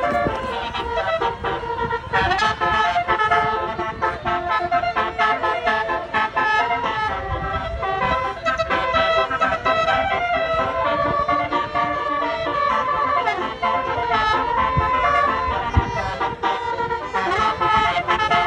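Basuri telolet horn, a multi-tone musical vehicle horn, playing a continuous jingle of quickly changing notes over a low rumble.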